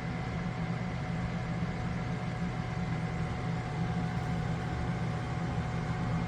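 Steady low machine hum with faint steady whining tones above it, unchanging throughout.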